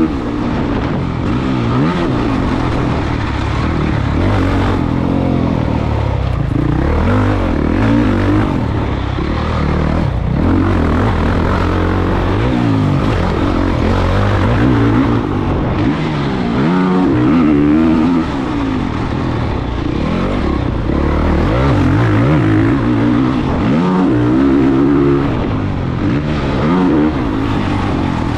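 Honda CRF450 motocross bike's single-cylinder four-stroke engine at race pace, revving up and dropping off again and again as the rider accelerates, shifts and shuts off for corners.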